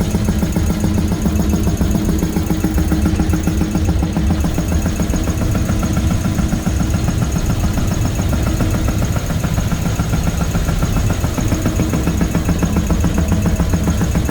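Compressed-air equipment running: a steady low mechanical hum with a faint, steady high whine above it, as the pressurised system operates after its leak test.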